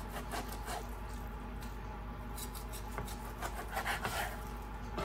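Kitchen knife slicing through a raw beef tenderloin on a wooden cutting board: soft scraping and rubbing strokes, a few louder ones about two and a half and four seconds in, over a low steady hum.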